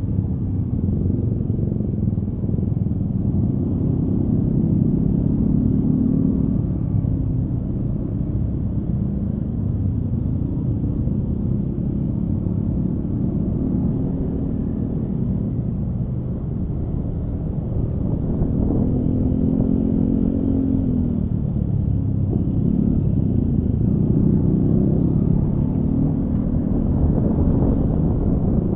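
Honda Scoopy scooter riding in traffic: its engine runs steadily under a continuous road rumble, and its pitch rises and falls with the throttle, most plainly about two-thirds of the way in.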